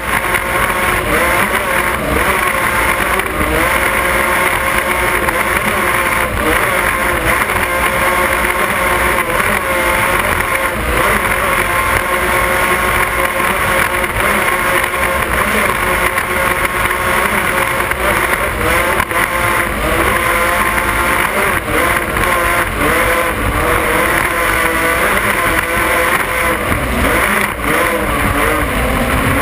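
Offshore racing powerboat's engines running hard at racing speed, their pitch wavering slightly, over a steady rush of water and wind.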